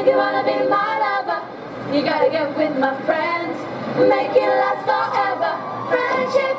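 A group of girls singing together in a cheer chant.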